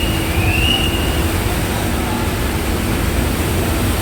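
Passenger ferry's engines running with a steady low hum, heard over wind and water noise. A short, high whistle-like tone rises and falls in the first second.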